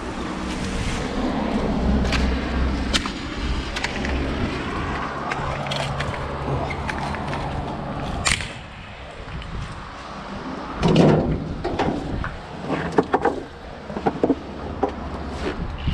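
A vehicle engine running steadily for about the first eight seconds, then dying away, followed by a run of sharp knocks and clattering.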